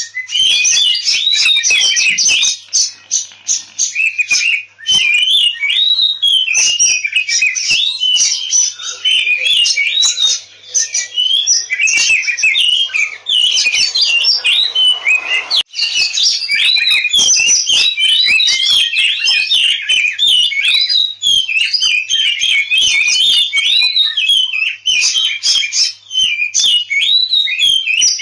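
Oriental magpie-robin (kacer) singing without pause: a fast, varied stream of gliding whistled and scratchy notes with many sharp clicking notes mixed in. It is the agitated, combative 'ngobra' fighting song that keepers play to rouse their birds to sing.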